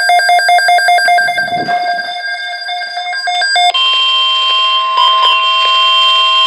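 Weather radio alert tones: rapid pulsing electronic beeping at several fixed pitches switches about 3.7 seconds in to a steady single-pitch alarm tone. This signals the start of a new alert broadcast.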